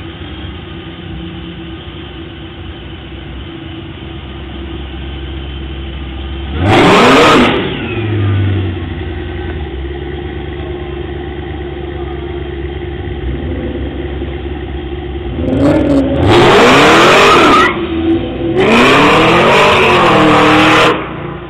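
Hot-rod car engine idling, then revved hard three times: a short rev about seven seconds in, and two longer runs of revving in the second half, the pitch rising and falling with each blip of the throttle.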